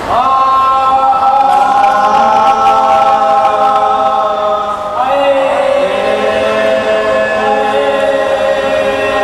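Several men chanting together in long, drawn-out held notes, in two sung phrases with a fresh start about five seconds in.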